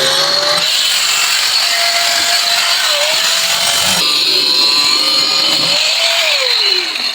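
Electric power tool cutting through a PVC pipe, its motor running loud and steady with a high whine. Its pitch wavers as the blade bites, then falls near the end as the motor winds down.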